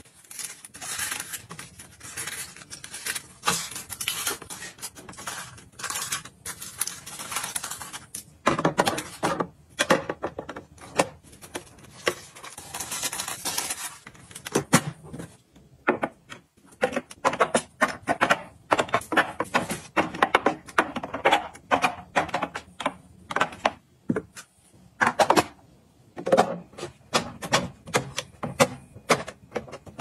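Clear plastic fridge-organizer bins and an egg tray being handled and set on a countertop as produce is laid in: many sharp plastic clicks, taps and clatters. There is a long stretch of rustling at first and another shorter one a few seconds later.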